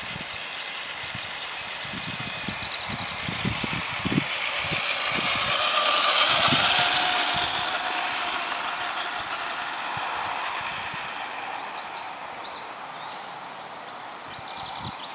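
Radio-controlled Tamiya Tundra truck driving over gravel: its motor and gears whine and its tyres crunch on the stones, growing louder as it passes close about halfway through, then fading as it drives away.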